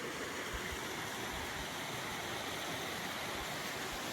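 Steady rush of water from Ribbon Fall and its creek: an even hiss with no breaks.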